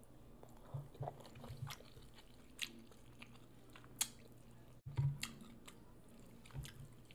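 Chewing of birria ramen noodles: soft wet mouth clicks and smacks at an uneven pace, with a few sharper clicks.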